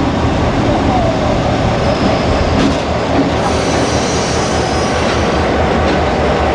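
A diesel locomotive hauling passenger carriages passes close by: its engine running and steel wheels running over the rails, a loud steady noise throughout.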